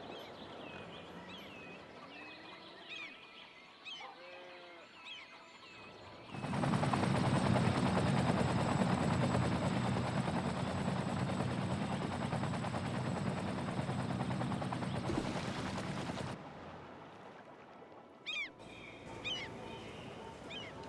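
Birds chirping, with a few lower honking calls. About six seconds in, a much louder, dense rattling mechanical noise with a low hum starts abruptly, runs for about ten seconds and cuts off. Then the chirping resumes.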